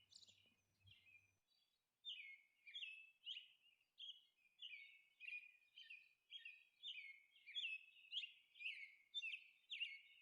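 Faint bird chirping: a short, high call repeated about twice a second.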